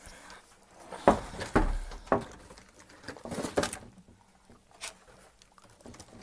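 Handling noise from a phone carried by hand: a run of soft knocks, taps and rustles, with a heavier thud about a second and a half in and another cluster of taps a little past the middle.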